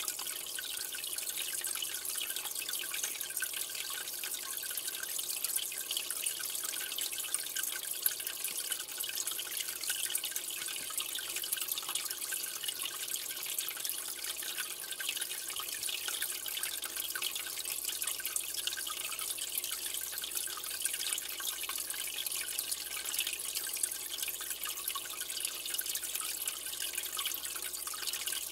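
Steady trickling and splashing of aquarium water, a continuous fine crackling hiss with no pauses.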